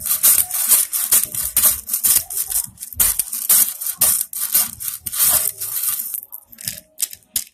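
Hands handling things up close: a quick run of scratchy rubbing and rustling strokes, with a few sharp clicks near the end.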